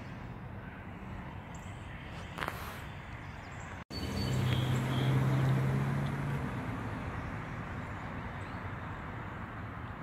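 Outdoor background noise with a motor vehicle's engine hum swelling up about four seconds in and fading over the next couple of seconds.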